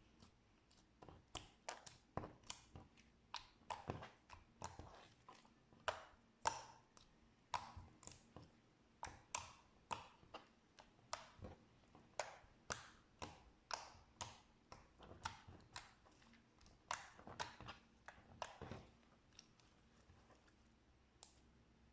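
Slime being pressed and worked by hand, making a run of sharp wet pops and clicks, about two a second, that stops near the end.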